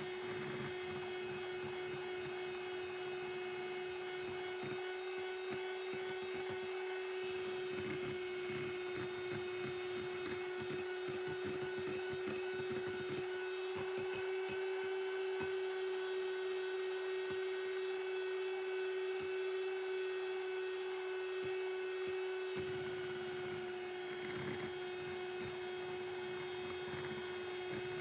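Electric mixer whipping egg whites into meringue: a steady motor whine with the beaters rattling lightly in the bowl.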